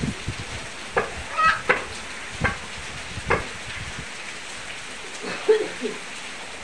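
Steady rain falling, an even hiss, with several short sharp sounds over it.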